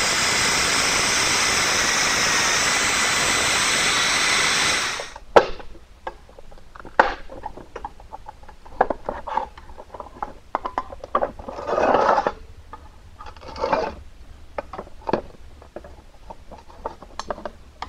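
Pneumatic right-angle grinder with a small abrasive disc running with a high whine as it grinds down the studs holding the chrome grille bars, cutting off suddenly about five seconds in. Then sharp metal clicks and two scrapes as the bars are pried loose from the grille frame with a screwdriver.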